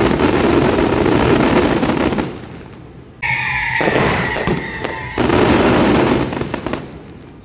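Fireworks going off in dense, rapid volleys: a long barrage fades out about two to three seconds in. A new barrage starts abruptly a little after three seconds, with a shrill whistle at its start, and swells again at about five seconds before dying down near the end.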